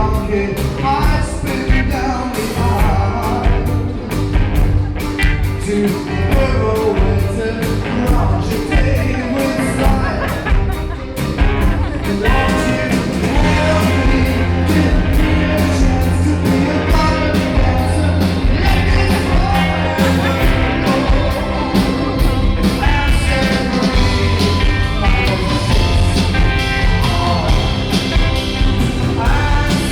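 Live band performing a rock-pop song, with a singing voice over the instruments.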